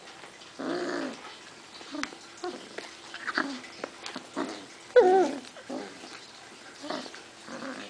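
Basset hound puppies whimpering and yipping in short pitched calls while they play-wrestle; the loudest is a wavering cry falling in pitch about five seconds in.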